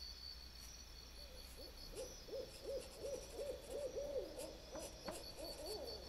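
A rapid series of hooting calls, about three a second, starting about a second in, over a steady pulsing high chirp like crickets.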